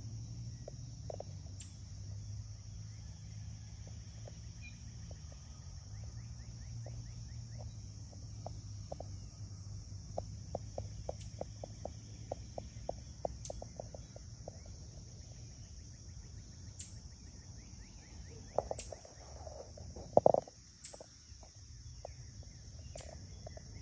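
Night-time woods ambience: a steady high insect chorus over a low rumble, with a run of soft crackles from the campfire through the middle. A couple of louder knocks come near the end, the second the loudest.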